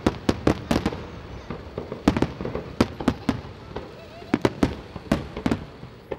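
Aerial fireworks shells bursting in a display: sharp bangs and cracks come in quick, irregular clusters of several at a time, with short lulls between them.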